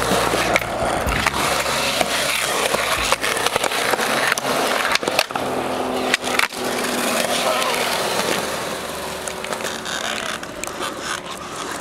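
Skateboard wheels rolling over concrete, with several sharp clacks of the board hitting the ground between about three and seven seconds in; the rolling gets quieter near the end.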